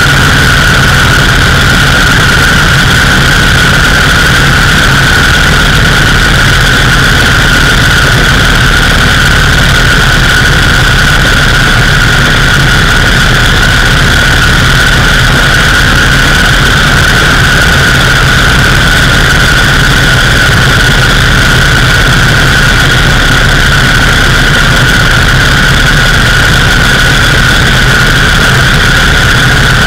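Indian 101 Scout's side-valve V-twin engine running steadily at road speed, loud and unchanging, with a steady high-pitched whine over it.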